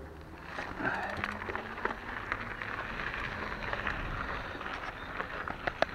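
Mountain bike tyres crunching and hissing over a gravel path as the bike gets rolling about half a second in, with a few sharp clicks near the end.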